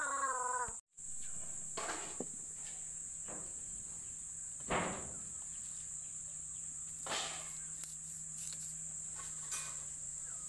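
A steady high-pitched insect drone, with several soft whooshes, the loudest about five seconds in. A drawn-out voice stops abruptly just under a second in.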